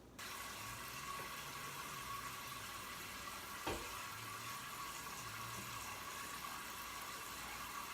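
Kitchen tap running water into a cooking pot: a steady rush that starts abruptly, with a single knock about three and a half seconds in.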